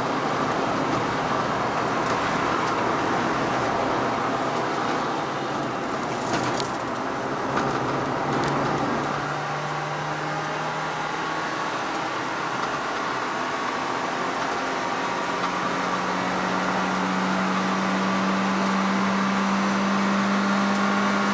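Car engine and tyre and road noise heard from inside the cabin while lapping a circuit. The engine note runs steadily, changing pitch about nine seconds in and rising again near the fifteen-second mark. There is one short click about six and a half seconds in.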